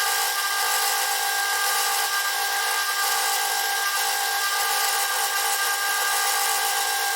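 A small power grinding tool runs steadily with a constant whine and hiss. It is smoothing the sharp edges off a small steel folding-pliers multi-tool.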